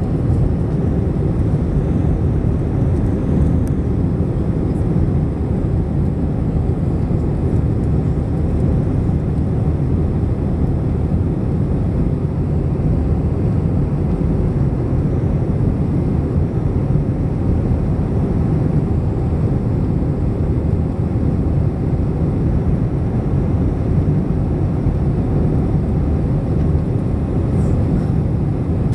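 Steady cabin roar inside an Airbus A321-211 with CFM56 jet engines running: a deep, even rush of engine and airflow noise that holds without rising or falling.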